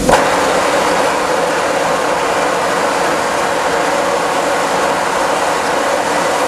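Disneyland Railroad steam locomotive blowing down, steam rushing out low under the frame in a loud, steady hiss. The hiss starts suddenly and cuts off near the end.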